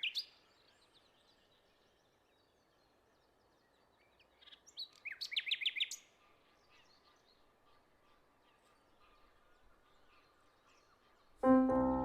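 Bird chirping: a brief call at the very start, then a quick run of about eight sharp chirps around five seconds in, over a faint steady hiss. Music with sustained tones comes in near the end, louder than the birds.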